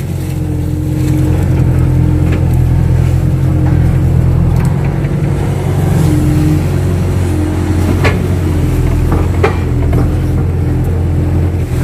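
Kato crawler excavator's diesel engine and hydraulics working under load, heard from inside the cab while it digs and swings. The engine note is steady and grows louder about a second in, with a hydraulic whine that comes and goes and a couple of sharp metal clanks near the end.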